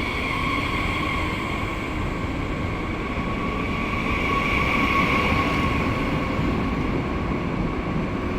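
Train running steadily: a continuous rumble with a steady high whine over it.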